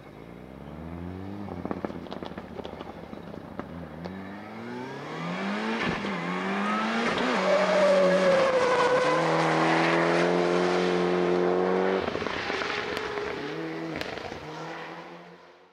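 Mitsubishi Lancer Evo VI's turbocharged four-cylinder accelerating hard out of a slide, the revs climbing and dropping through several gear changes, loudest as the car passes at high revs. Near the end the revs fall, with quick blips and a couple of sharp cracks as it slows, before the sound fades out.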